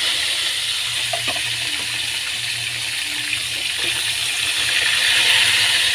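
Tamarong fish frying in hot oil: a steady sizzling hiss.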